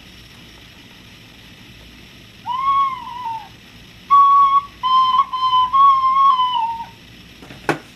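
Plastic recorder played badly: after a quiet start, one note that swells up and sags in pitch, then after a short pause a string of held, wavering notes at much the same high pitch. A single sharp knock near the end.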